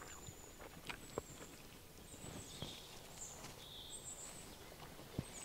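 Quiet outdoor background with faint, high, short chirps repeating every second or so, a couple of lower chirps around the middle, and a few soft clicks.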